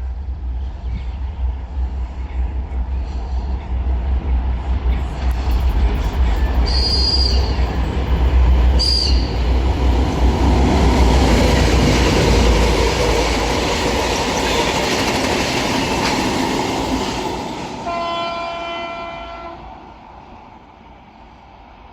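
A consist of diesel locomotives, a twin-section 2M62U and three TEM18DM shunters coupled together, passing: deep engine rumble and wheel noise build to a peak about ten to thirteen seconds in, then fade. Two brief high squeals come around seven and nine seconds in, and a horn sounds for about a second and a half near the end.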